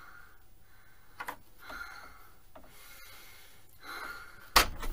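A woman breathing hard in faint, ragged gasps about once a second, acting a possessed fit. A sudden loud burst of sound comes right at the end.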